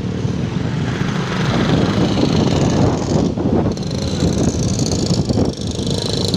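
Big ocean waves breaking on the shore: a loud, continuous rush with a deep rumble, the hiss of the surf swelling about halfway through.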